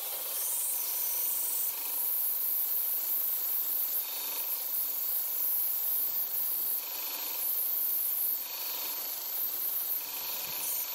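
Belt grinder running while a steel knife blade, forged from a scrap wheel bearing, is ground against the abrasive belt, making a steady high grinding hiss that swells a little as the blade is pressed and moved.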